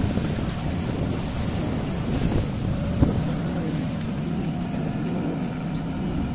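A river boat's engine running with a steady low rumble, with wind buffeting the microphone. A single brief knock about three seconds in.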